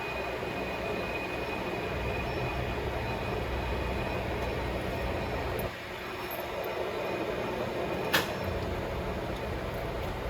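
Mazak engine lathe running with a steady mechanical hum. About halfway through, the sound drops suddenly and then builds back up over a couple of seconds. A single sharp click comes near the end.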